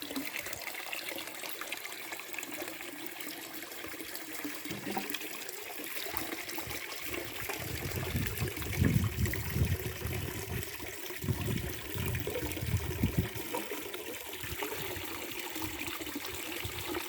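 Spring water trickling and splashing steadily, with a stretch of louder, lower surges from about halfway through.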